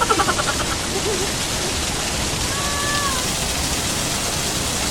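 Steady rushing of flowing water from a mountain stream.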